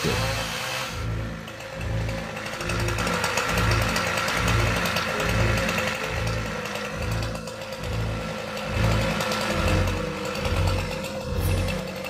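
Background music with a steady beat, about two beats a second, over a chainsaw running at the base of a tree trunk.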